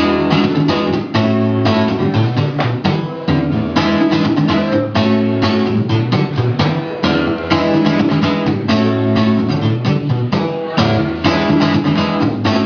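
Acoustic guitar strummed in a steady rhythm, playing the chords of a song's intro.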